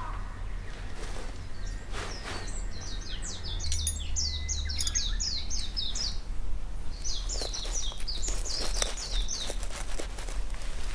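A songbird singing two quick runs of rapid, repeated high notes, a few seconds apart, over a steady low rumble.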